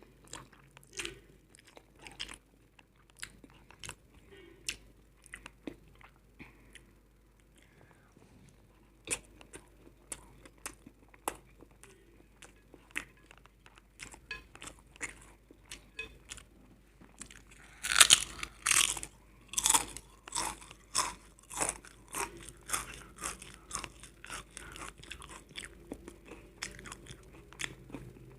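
Close-miked eating sounds from a meal of instant noodles, eggs and potato chips: irregular chewing and crunching bites, with a run of louder, crisper crunches about two-thirds of the way through.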